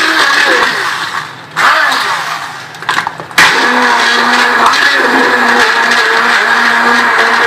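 Electric blender running on a load of mango, banana, yoghurt and ice cubes. Its motor cuts out about a second in, runs briefly again, then comes back on at full speed a little over three seconds in and runs steadily.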